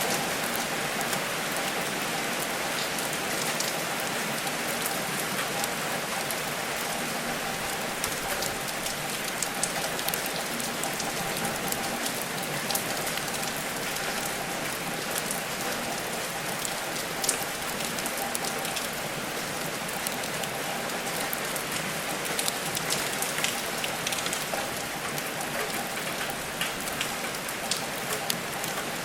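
Steady rain falling, an even hiss with scattered sharp ticks throughout.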